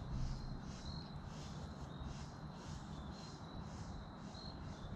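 Insects calling outdoors in an even, pulsing rhythm, about three high chirps a second over a thin steady high whine, with a low rumble underneath.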